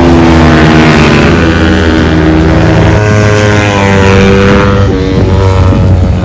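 Racing motorcycle engines running hard on the circuit, several notes overlapping. The pitch drops early, then climbs as the bikes accelerate, steps down about five seconds in, and climbs again.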